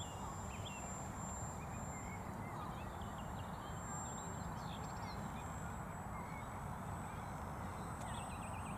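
Outdoor ambience: a steady low rumble and hiss with scattered short bird chirps, and a quick run of repeated calls near the end.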